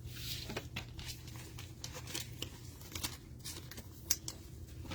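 Trading cards and crinkly plastic cello-pack wrappers being handled: irregular light clicks, rustles and crinkles over a steady low hum.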